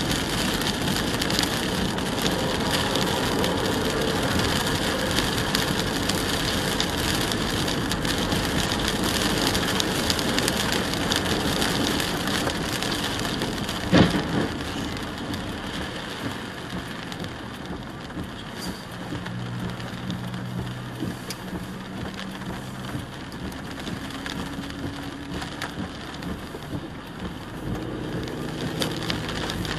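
Rain falling on a car's windshield and roof with wet-road tyre noise as the car drives in the rain, with a single sharp knock about halfway through. After the knock the rain is quieter and a low steady hum of the car comes through.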